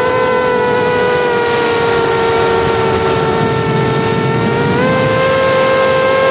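Small FPV quadcopter's brushless motors and propellers whining in flight, heard through the onboard camera over a rush of air. The whine sags slightly in pitch, then steps up about five seconds in as the throttle rises.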